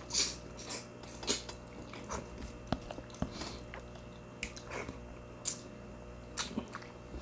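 Close-up eating sounds: irregular wet chewing, smacking and sucking noises, with a few small sharp clicks.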